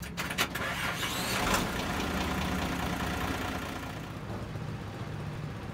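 An engine idling with a steady low hum, with a few sharp clicks in the first half second and a short burst of hiss about a second and a half in.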